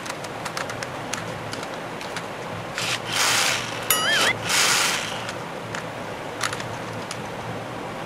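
Edited-in cartoon sound effects: two whooshes about three and four and a half seconds in, with a short wobbling electronic tone between them. Faint clicks of a plastic toy car being handled sit over a steady low hum.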